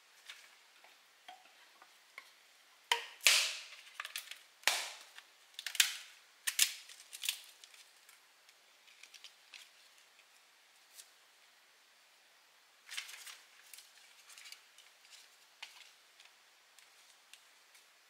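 Split bamboo slats clacking and knocking against each other as they are laid on a bamboo platform floor. Sharp clacks come in a quick run about three to seven seconds in, and a shorter run around thirteen seconds.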